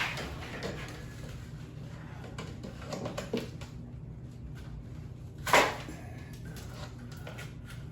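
Scattered light taps and knocks over a steady low hum, with one sharp, much louder knock about five and a half seconds in.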